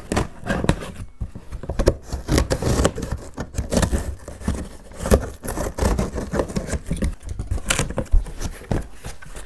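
Cardboard shipping box being opened by hand: irregular scraping, scratching and tearing at the packing tape, then the cardboard flaps being pulled open.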